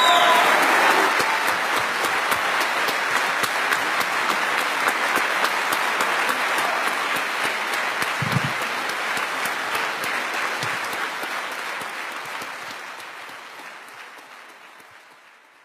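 An audience applauding steadily, the clapping dying away over the last few seconds.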